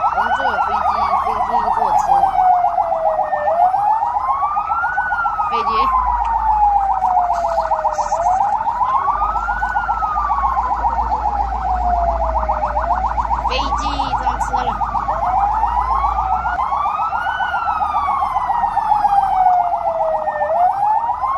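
Emergency siren wailing, each cycle sweeping up quickly and sliding slowly back down, repeating every few seconds with a fast buzzing pulse through it. A low rumble sits under it through the middle.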